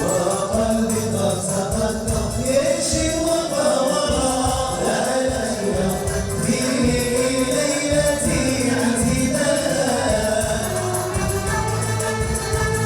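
Traditional Moroccan wedding music: a group of voices singing together over steady hand-drum percussion.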